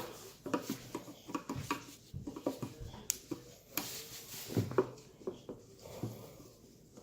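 Irregular plastic clicks and knocks from hands prying up the retaining tabs on a heated headlight housing and handling the lens assembly.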